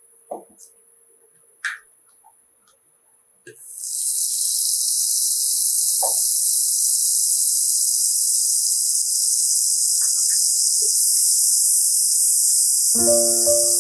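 Butter sizzling in a hot enamelled cast-iron pot: a loud, steady high hiss that starts suddenly about three and a half seconds in, after a few soft clicks over a faint hum.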